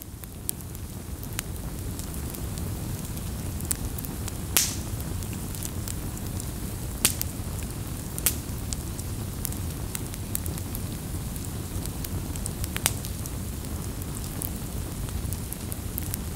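Log fire burning: irregular sharp crackles and pops over a steady low rush, with a few louder pops scattered through.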